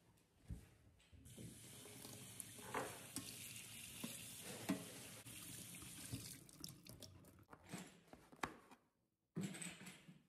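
Kitchen tap running into a stainless steel sink while food is rinsed in a metal mesh strainer under the stream, with a few sharp knocks. The water stops about six seconds in, followed by scattered light clicks.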